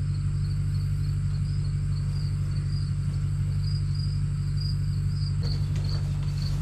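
An engine running at a steady idle, with crickets chirping in a regular rhythm about twice a second.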